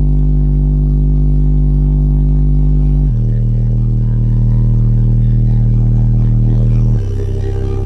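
Skar Audio ZVX-15 15-inch car subwoofer playing deep, sustained bass notes of a song, heard inside the car's cabin; each note holds steady, changing to a new note about three seconds in and again near the end.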